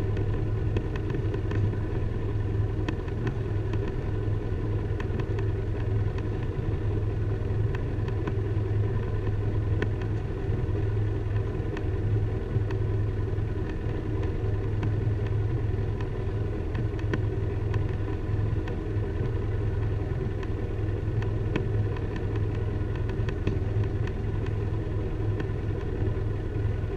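Motorboat engine running steadily at low revs: a constant, even hum.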